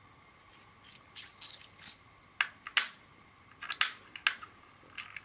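Small metal parts of a 3.5mm jack socket clicking and tapping against each other and the tabletop as they are handled: a dozen or so sharp, light clicks, starting about a second in.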